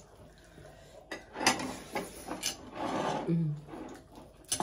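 Sounds of eating at a table: several light clinks of tableware, with a louder rustling, rubbing noise of rice being mixed by hand on plates about three seconds in.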